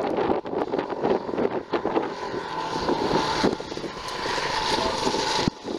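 Dirt bike engine running as the motorcycle rides closer, with wind buffeting the microphone.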